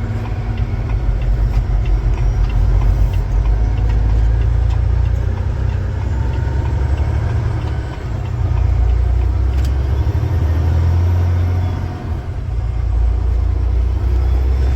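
Truck running, a steady deep rumble that eases briefly twice.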